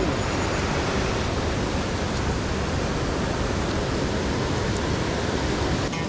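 Steady rush of a mountain headwater stream, water pouring over rocks.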